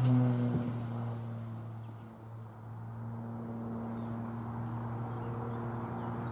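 Steady drone of a motor holding one even pitch, dipping in level about two seconds in and then running on steadily.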